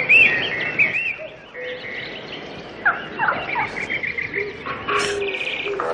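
Birds calling and chirping: many short, repeated chirps, with a rapid run of quick calls about five seconds in.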